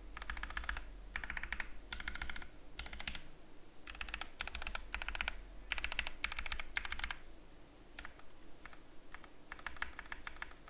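Typing on an Epomaker EP84 mechanical keyboard fitted with lubed Gateron milky yellow linear switches, with a foam-dampened case and lubed stabilizers. The keystrokes come in fast runs with short pauses between them, then turn slower and more scattered after about seven seconds.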